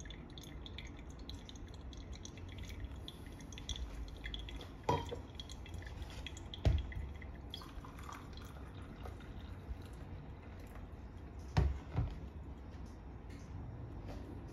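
Coffee dripping from a V60 pour-over filter in small, irregular drips, with a few light knocks of dishes being handled, two of them close together near the end.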